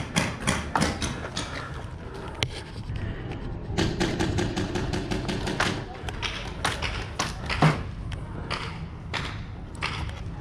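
Paintball markers firing: sharp shots at irregular spacing, with a rapid string of shots about four seconds in.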